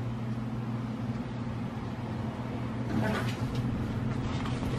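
Steady low mechanical hum, with a brief faint clatter about three seconds in.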